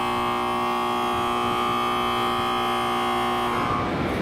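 A steady electronic signal tone of several pitches held together, sounding on the station platform, which cuts off about three and a half seconds in.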